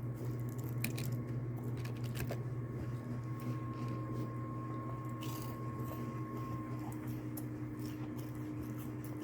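Steady low electrical hum of a room with a computer running, with a few computer-keyboard clicks in the first couple of seconds and one more about five seconds in.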